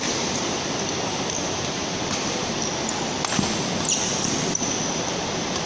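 Badminton rally: several sharp racket strikes on the shuttlecock, the loudest about three and a half and four seconds in, over a loud, steady rushing noise.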